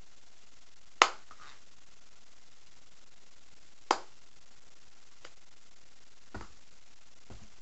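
Hands slapping together while signing: a sharp slap about a second in and another near four seconds, then a few fainter taps, over a steady background hiss.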